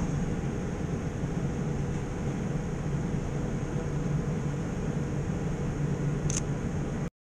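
Steady city-street background noise with a low hum, and a single short camera shutter click about six seconds in, as the camera is held up to the eye. The sound cuts off abruptly just before the end.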